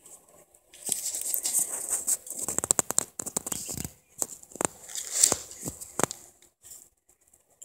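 A kitten's paws scuffing and scratching on a gritty concrete floor, with many sharp taps, from about a second in until about four seconds in. A few separate sharp taps follow as it bats at a praying mantis.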